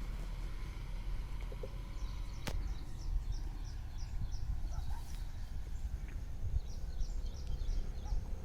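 Low rumble of a slowly moving car, with a bird chirping a quick series of short high notes from about two seconds in. A single sharp click comes about two and a half seconds in.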